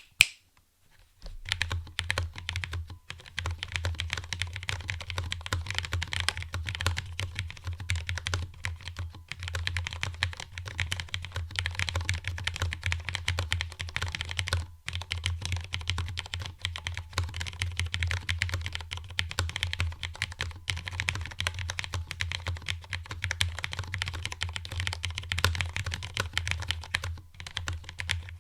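FILCO Stingray TKL low-profile mechanical keyboard with Cherry MX Red linear switches being typed on quickly and steadily, key after key clicking in a dense run that starts about a second in. The keyboard sits on a thick cloth desk mat.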